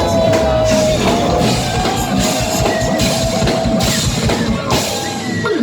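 Live band music, loud: drum kit strokes under a long held note that ends about four seconds in.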